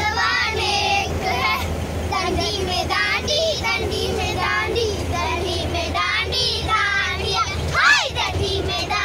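A group of girls singing together in chorus over the steady low hum of a bus engine. About eight seconds in, one voice rises sharply in a loud whoop.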